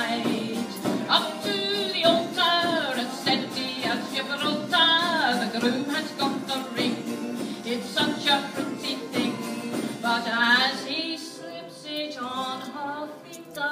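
A song performed live through a PA: a singer's voice with vibrato over backing music with a steady beat of crisp percussion. The beat thins out about eleven seconds in, and the voice carries on.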